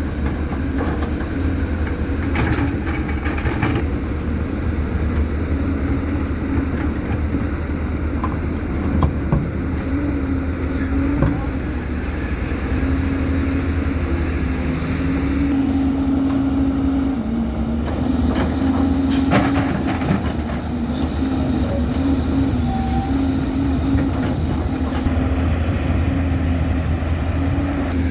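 Heavy diesel construction machinery running steadily, its engine note wavering slightly, with a few short clanks and scrapes of metal and stone now and then.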